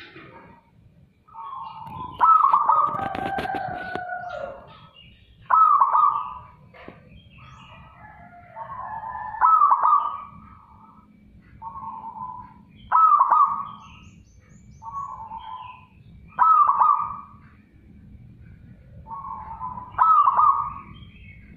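Zebra dove (perkutut) cooing: six loud phrases, about one every three and a half seconds, each with softer lead notes before a loud coo. A longer call that falls in pitch overlaps the first phrase.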